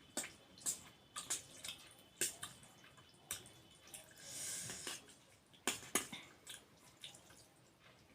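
Close-miked wet mouth sounds of someone eating saucy noodles: scattered smacks and clicks of chewing, with a longer slurp about four seconds in.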